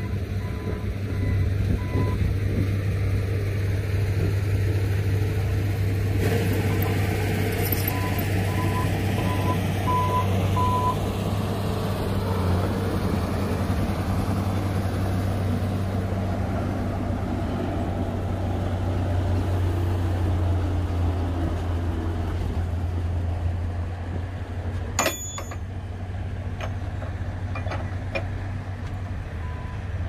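Heavy diesel engine of a LiuGong bulldozer running steadily as it pushes dirt, with a reversing alarm beeping about twice a second at the start, again around a third of the way in, and near the end. A single sharp metallic clank sounds near the end.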